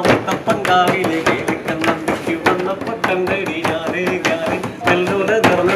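Malayalam folk-song music: a melody with a steady low drone over rapid, sharp percussion strokes.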